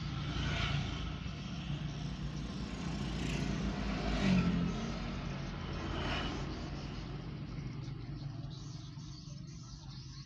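Small motorcycles and scooters riding past one after another, over a steady low engine hum. Each pass swells and fades, and the traffic dies down toward the end.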